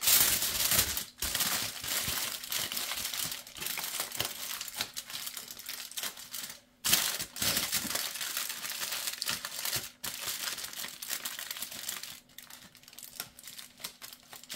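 Thin aluminium foil crinkling and crackling as it is folded and pressed by hand around a fish, with a few short pauses. It grows quieter in the last couple of seconds.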